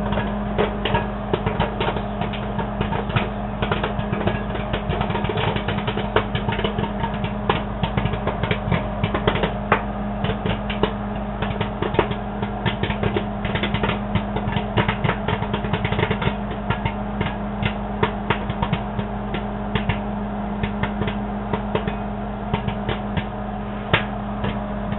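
Orville Redenbacher's Pop Up Bowl microwave popcorn popping fast in a running Panasonic microwave oven: rapid sharp pops over the oven's steady hum. The pops come a little less often near the end as the popping starts to slow.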